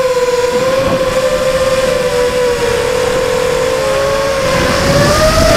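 Steady whine of an FPV model aircraft's electric motor and propellers, picked up by the onboard camera, with wind rushing on the microphone. The pitch sags a little midway and rises near the end as the throttle comes up.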